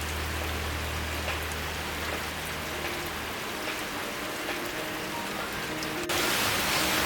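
Heavy rain falling steadily, a dense hiss of drops striking surfaces. It becomes suddenly louder about six seconds in.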